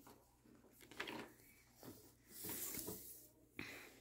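Pokémon trading cards and foil booster packs being handled on a wooden table: faint rustles with a soft tap about a second in and a longer rustle a little past halfway.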